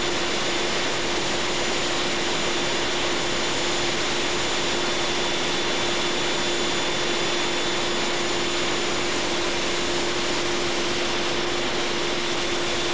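Steady, loud machinery noise of a large marine diesel engine running: an even rushing sound with a held hum and two high steady whines over it, unchanging throughout.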